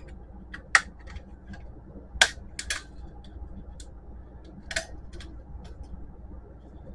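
A flat-blade screwdriver prying at the black plastic cartridge-carriage part of an HP Photosmart C4480 printer, giving a handful of sharp plastic clicks and snaps, the loudest about two seconds in and a double one just after.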